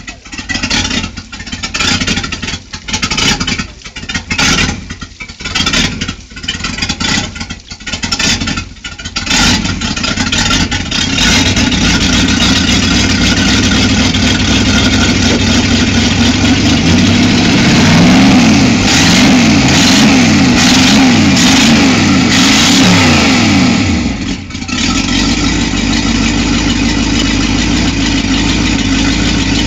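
Boat's V8 sterndrive engine on its first run after winter storage: for the first ten seconds it runs unevenly, surging about once a second. It then smooths out, is revved up and down several times, and settles to a steady idle.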